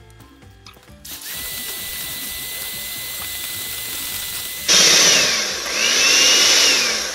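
Electric hand mixer beating egg whites in a glass bowl into a stiff foam. It starts about a second in with a steady whine, then becomes much louder a little past halfway, its pitch dipping and rising as the beaters work the foam, and tails off near the end.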